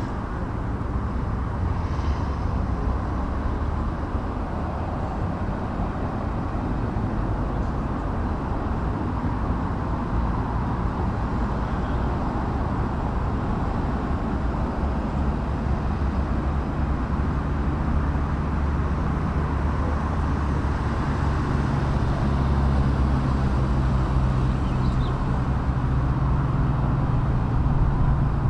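Steady low engine rumble of heavy vehicles or machinery, growing somewhat louder and deeper in the second half.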